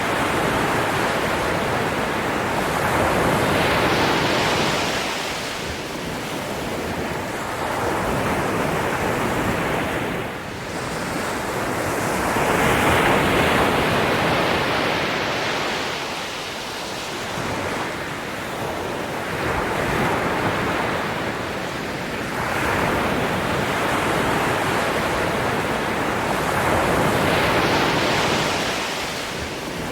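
Ocean waves breaking and washing on the shore: a steady rush of surf that swells and falls back with each wave every few seconds.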